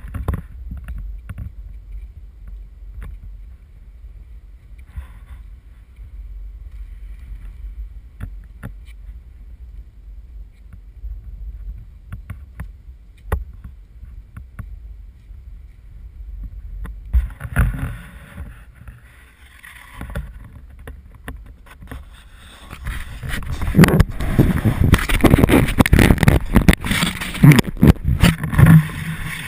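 Low wind rumble and handling noise on a GoPro camera's microphone as it is moved about on a PVC pole mount, with scattered knocks. From about 17 s, and loudest from about 23 s, heavy rustling and bumping against the camera.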